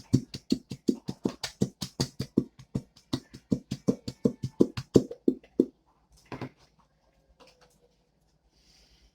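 Rapid, even knocking, about five knocks a second for about six seconds, then a few scattered faint knocks: slime ingredients being stirred, the mixing tool striking the sides of the container.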